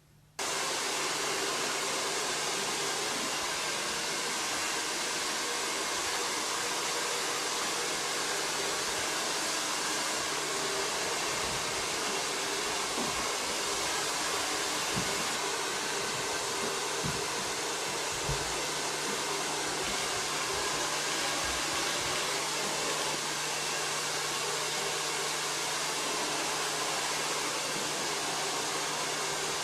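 Handheld hair dryer switched on about half a second in, then blowing steadily with a constant low hum under the rush of air.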